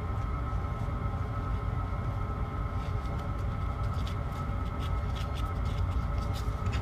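A drilling machine's motor running steadily while boring a grease hole right through a steel pivot pin, with light sharp metallic ticks from about halfway through.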